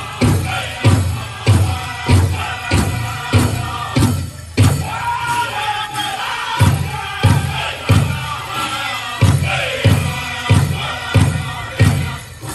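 Powwow drum group singing a chicken dance song, with the big drum struck in a steady beat a little under two times a second under high-pitched voices. The drumming softens for a moment about five seconds in while the high singing carries on, then the beat resumes.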